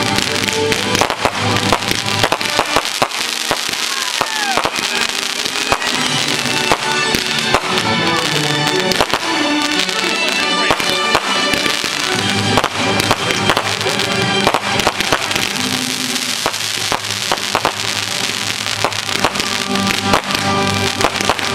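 Fireworks going off: many rapid cracks and pops through the whole stretch, with music playing alongside.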